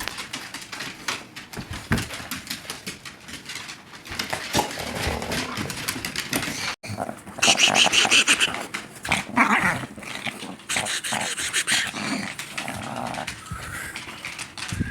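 Dog growling during rough play-wrestling, mixed with scuffling and scrabbling. It grows louder and higher-pitched for a couple of seconds about halfway through.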